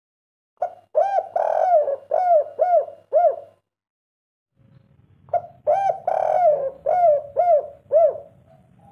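Spotted dove singing its 'kuk 3' song: two phrases of about six repeated arching coos each, separated by a pause of about two seconds.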